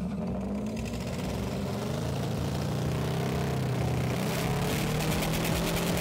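Engine running hard to drive a large Kirovets tractor turbocharger, its pitch rising slowly as revs build and the turbo spools up. A rapid, even ticking joins in about four seconds in.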